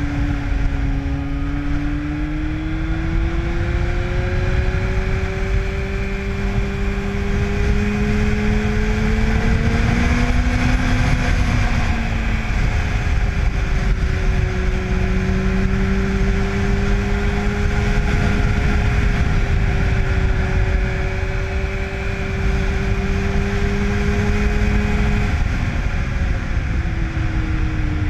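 2005 Yamaha FZ1's inline-four engine through a Dan Moto aftermarket exhaust, running under way. The engine note climbs gradually for about ten seconds, eases back and holds steady, then drops near the end, over a constant low rush of wind noise.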